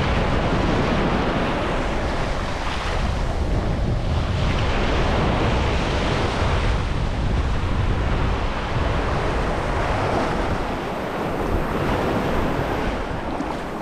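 Small ocean waves breaking and washing up a sandy beach, a steady wash of surf, with wind buffeting the microphone.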